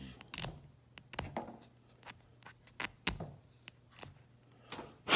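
Knife blade scraping the coloured coating off a small clear plastic light piece from an HVAC control knob: a run of short, irregular scraping strokes and clicks, the loudest near the end.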